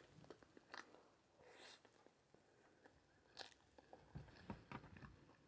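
Faint close-miked chewing and biting of food, with many small wet mouth clicks and smacks. There are two short hisses in the first half and a few soft low thumps near the end.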